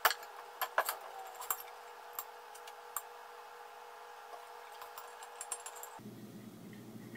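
Scattered light clicks and taps of the lamp body, its fittings and the cord being handled while the cord is fed up through the lamp base, a few sharp ones in the first three seconds and smaller ticks later.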